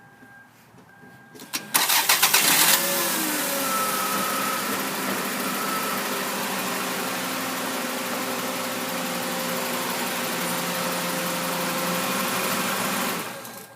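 Four-cylinder car engine cranked by the starter for about a second, catching and settling into a steady idle, then shut off abruptly near the end.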